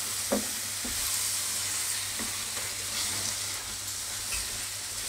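A steel spatula stirring a thick potato and soya-chunk curry in a kadhai over a steady sizzle, with a few short knocks of the spatula against the pan.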